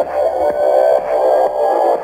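Music playing through a Gran Prix LT249DVB-T LCD TV's built-in speakers, loud and steady with a regular beat, as a video intro plays on screen.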